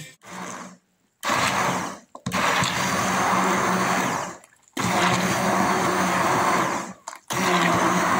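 Hand-held immersion blender running in a glass bowl of thin batter, switched on and off in four short runs of one to two seconds with brief stops between, a steady motor whir with a low hum.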